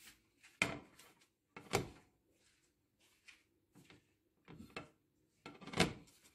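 A series of separate knocks and clunks from handling things in the kitchen, about six in all at uneven gaps, the loudest near the end.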